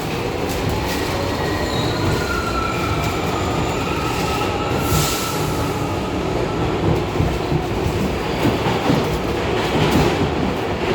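An R62A subway train running on the 6 line: a steady rumble of wheels on rail, with thin, wavering wheel squeal over it.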